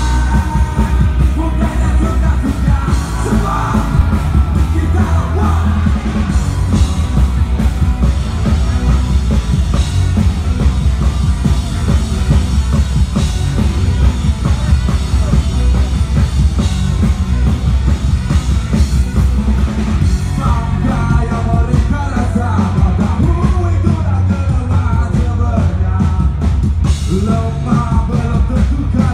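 Live rock band playing loud, electric guitars and drums through a stage PA, with sung and shouted vocals near the start and again over the last third.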